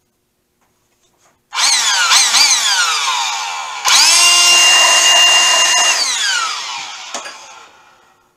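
Cordless drill running at the mill head. It starts about a second and a half in and its speed dips twice. It then runs at full speed for about two seconds and slows to a stop over the last two seconds.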